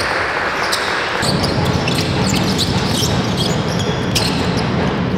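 Basketball game on an indoor court: a ball bouncing amid a steady din in the hall, with many short, sharp high-pitched sounds throughout and the noise growing fuller and lower about a second in.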